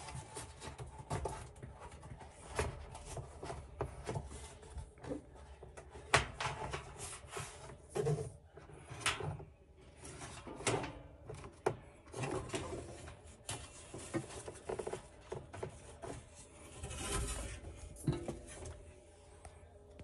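Irregular rubbing, scraping and knocks as a ribbed rubber drive belt is worked by hand around a tumble dryer's steel drum while a replacement belt is fitted, with a longer rubbing sound near the end.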